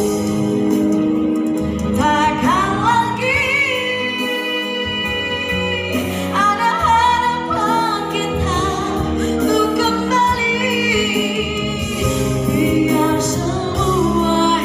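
A woman singing into a handheld microphone over instrumental accompaniment, holding notes with vibrato. Her voice comes in about two seconds in, over the accompaniment that is already playing.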